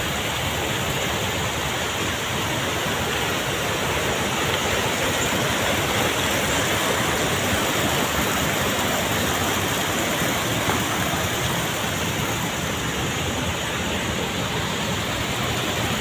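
Rushing water: a steady, even roar with no change.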